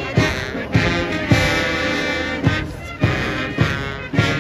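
Guards military band playing a march on brass instruments while marching, with a drum stroke on each step a little under twice a second.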